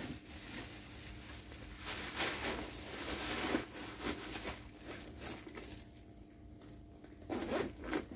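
Rustling and scraping of a fabric handbag being handled and turned over, with a few louder brushes between about two and three and a half seconds in.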